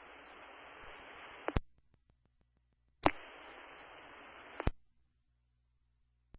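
Fire department scanner radio with open-channel static and no voice: a hiss that cuts off with a squelch click after about a second and a half, then about three seconds in another keyed transmission of the same hiss for about a second and a half, ending with a click.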